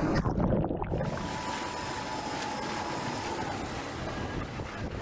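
Water churning and splashing as a mock helicopter cabin, an underwater egress trainer, plunges into a pool; after about a second it settles into a steady rush of water.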